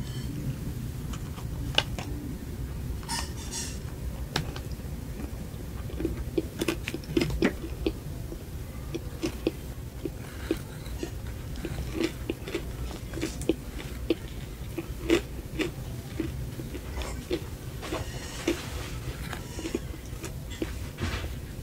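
Close-up biting and chewing of a frosted cupcake topped with cereal, with short crunches. A regular chewing rhythm of about two to three chews a second sets in about six seconds in, over a low steady hum.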